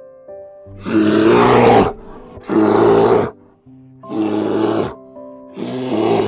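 Deep animal roars, four in a row, each lasting about a second with short gaps between, over background music with steady held notes.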